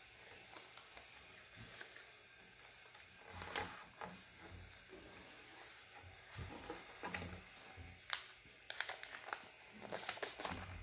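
Origami paper being folded and creased by hand on a tabletop: soft rustles and slides of the paper, with a run of quick crisp crinkles and taps near the end.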